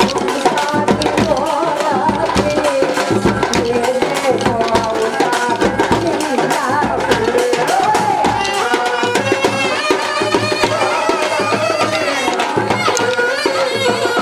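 Kolatam folk song: a woman singing through a microphone and loudspeaker over a steady drum beat, with the sharp clacks of dancers' wooden kolatam sticks struck together in rhythm.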